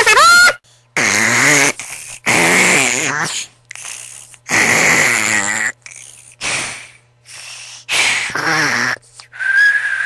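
Snoring: a sleeper's breaths rasp and whistle with a wavering pitch, about six of them, each under a second long. Near the end comes a single held whistling tone.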